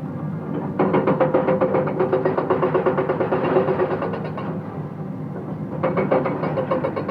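Komatsu excavator's hydraulic breaker hammering stone in rapid blows over the steady run of the diesel engine. It hammers from about a second in to past the middle, stops briefly so only the engine is heard, and starts hammering again near the end.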